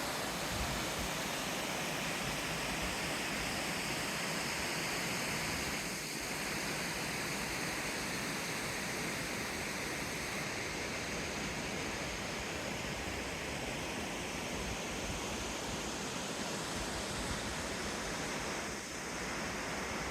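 Waterfall: a steady rush of falling water, with two brief slight dips in level.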